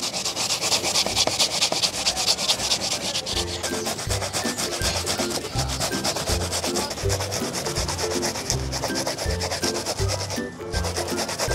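Rapid, rhythmic scraping of peeled yautía (taro root) rubbed back and forth over a perforated stainless-steel hand grater, grating the roots by hand into a pulp. The strokes pause briefly near the end.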